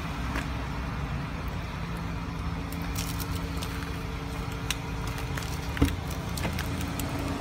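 A car engine idling with a steady hum, a few faint clicks and one sharper knock about six seconds in.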